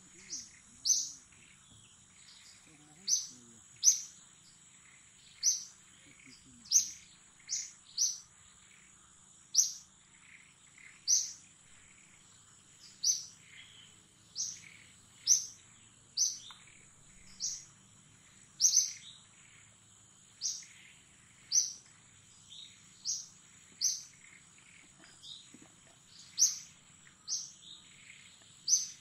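A bird repeating a short, sharp, high chirp about once a second, over a steady high-pitched insect drone.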